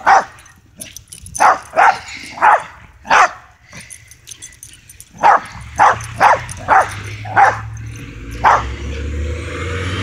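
Small dog barking: about a dozen short, sharp barks in two runs, with a pause of about two seconds between them. Near the end a vehicle's engine rumble comes in and holds steady.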